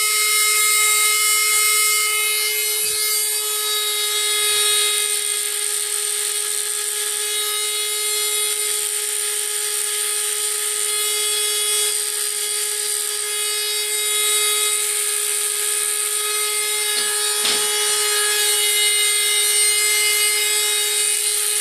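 Dremel rotary tool running with a steady high whine while its bit grinds the metal corners of an airsoft gearbox shell's cylinder window, rounding them off (radiusing) so they will not crack.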